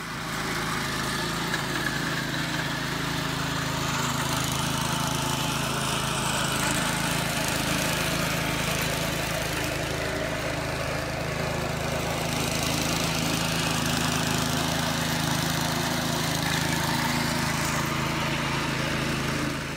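An engine running steadily at an even pitch.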